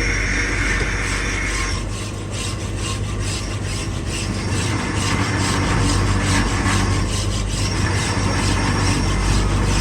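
Metal being filed or rubbed with repeated rasping strokes, from about two seconds in, over a steady machine hum.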